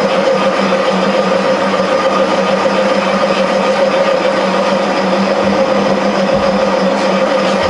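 Machine tool running steadily as a boring bar takes a 50-thousandths cut through a cast iron drive mount: a constant hum with a hiss of cutting over it.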